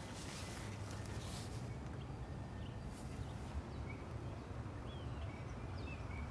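Outdoor ambience: a steady low rumble of wind on the microphone, with a few short, faint bird chirps in the second half.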